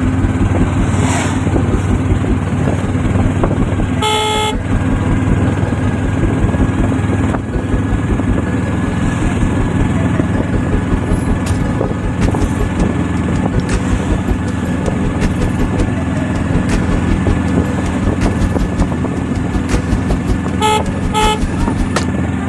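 Steady running noise of a motor vehicle in traffic. A horn sounds once about four seconds in, and two short horn toots come near the end.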